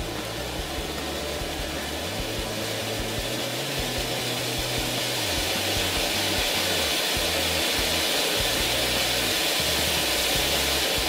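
Standard Fireworks Traffic Cone conical fountain spraying sparks with a steady rushing hiss, growing louder towards the end, without any crackle. Background music with a bass line plays along.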